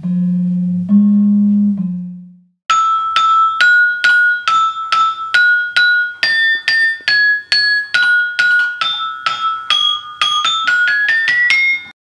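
Gamelan slenthem: two low, long-ringing bronze notes struck with a padded mallet, the second about a second in, fading away. After a short gap, a gamelan saron plays a run of bright, ringing metallic notes struck with a mallet, about two a second. Near the end the notes come faster and climb in pitch, then cut off abruptly.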